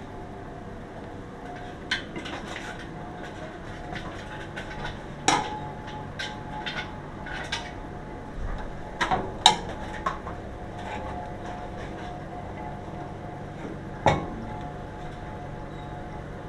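Scattered sharp metallic clicks and knocks, some ringing briefly, over a steady hum; the loudest knocks come about a third of the way in, just past halfway and near the end.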